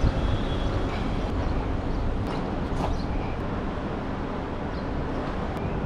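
Steady outdoor street noise: a low rumble of traffic and moving air, with a few faint clicks.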